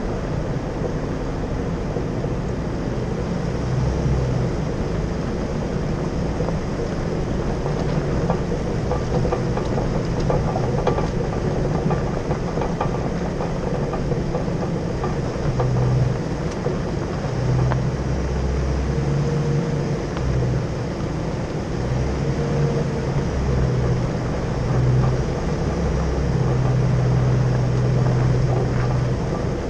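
A Jeep driving slowly over a rough, rocky dirt road: the engine runs with its low note swelling now and then under throttle, and the tyres crunch over gravel with occasional knocks.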